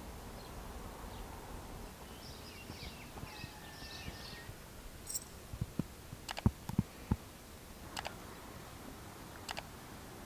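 Quiet rural ambience: a short run of bird chirps in the first few seconds, then a quick cluster of sharp clicks around the middle and a couple of fainter ticks near the end.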